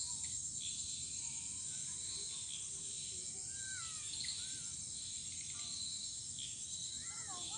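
Evening chorus of insects: a steady, shrill trilling throughout, with short bird calls here and there and a quick run of arched calls near the end, over a low steady rumble.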